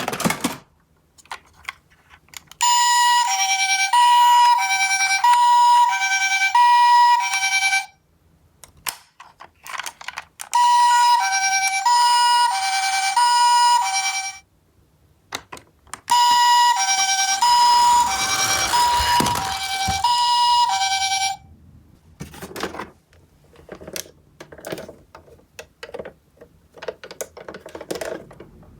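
Toy ambulance minicar's electronic two-tone siren, alternating a higher and a lower tone in the Japanese ambulance "pee-poh" pattern, sounding three times for several seconds each. Clicks and rattles of the plastic toys come between the bursts and after them.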